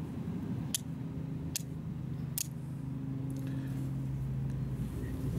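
Flint and steel being struck by hand: four sharp scraping clicks about 0.8 s apart, then a fainter one after about three seconds, each strike shaving sparks off the steel to catch on char cloth. A steady low hum runs underneath.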